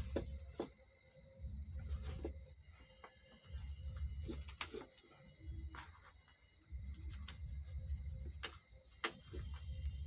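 Steady high-pitched insect trill, typical of crickets, with scattered sharp clicks and a low rumble that comes and goes every two to three seconds.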